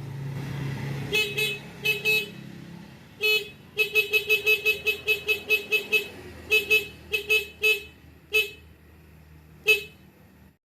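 A motorcycle's electric horn, newly wired through a relay, sounds in about twenty short toots. They come singly and in pairs, with a quick run of about five a second in the middle. This is a test showing the relay-switched horn works.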